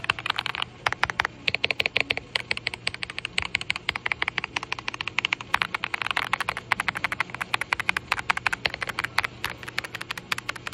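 Typing on an Aula F75 mechanical keyboard with Reaper switches: a fast, uneven run of keystroke clacks for a sound test, a few short pauses between bursts.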